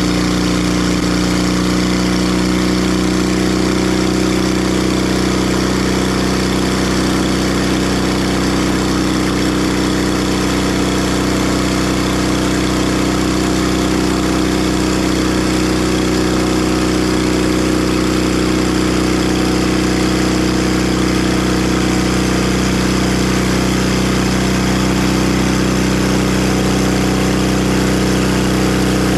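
Timber Harvester bandsaw mill's engine running at one steady, even speed, with a steady hiss over its hum.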